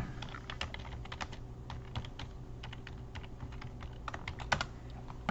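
Typing on a computer keyboard: irregular keystrokes, with a quick run of louder clicks about four and a half seconds in.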